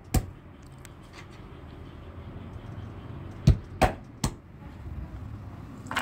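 A knife chopping on a cutting board: four sharp strokes, one near the start and three in quick succession a little past the middle.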